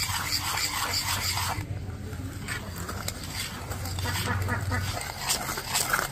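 Wire whisk beating eggs, oil and powdered sugar into cake batter in a metal bowl: quick, repeated scraping strokes of the whisk against the bowl, easing off briefly about two seconds in.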